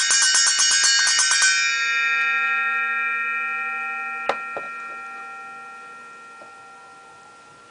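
Circular saw blade struck in quick succession with metal wrench pliers, ringing like a bell. The strikes stop about a second and a half in, and the blade's ring of several steady tones slowly fades away. There is one sharp click partway through the fade.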